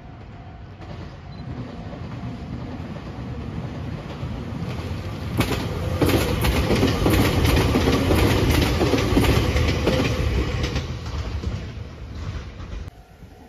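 A Meitetsu electric multiple-unit train passing close by. The running noise builds as it approaches, and from about five seconds in the wheels click rhythmically over the rail joints as the cars go past. It then fades and drops away abruptly near the end.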